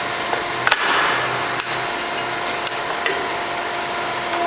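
A few sharp metal knocks and clanks from working a pipe bender, the first the loudest with a short ring after it, over the steady hum of the running machine.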